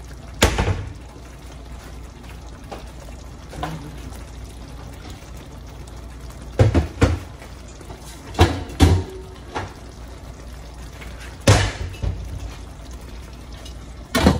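Short rib braise bubbling in a large non-stick pan, with several sharp pops scattered through. Near the end comes a metal clank as a stainless steel dome lid is set on the pan.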